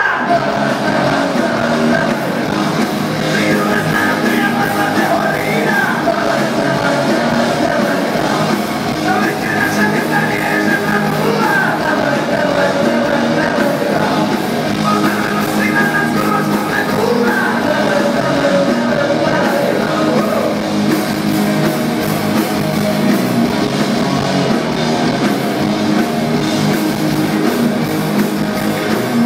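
Live punk rock band playing loudly: distorted electric guitar, bass guitar and drums, with a sung vocal over them.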